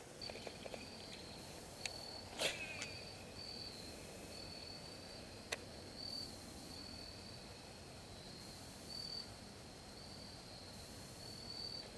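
Crickets chirping: a faint high chirp repeating about every three-quarters of a second, with a few soft clicks, the clearest about two and a half seconds in.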